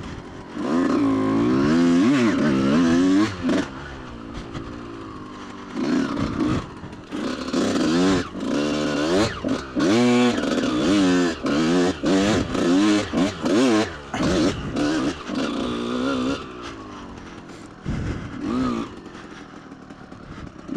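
2003 Kawasaki KX125 single-cylinder two-stroke dirt bike engine revving up and down through the gears, with a run of quick throttle blips and cuts in the middle. Near the end it drops back to a lower, quieter running.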